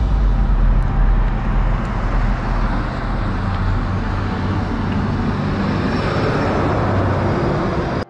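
Road traffic noise: vehicles running on the highway, a steady wash of tyre and engine sound with a deep rumble underneath.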